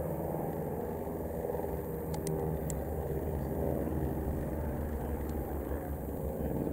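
Piston engines of vintage biplanes running as they fly past: a steady drone with a slightly wavering pitch, and a few faint ticks about two to three seconds in.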